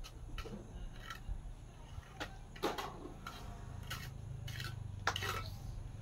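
Trowel tapping and scraping on concrete hollow blocks as they are set in mortar: about ten sharp, irregular knocks, the loudest about two and a half and five seconds in, over a low steady hum.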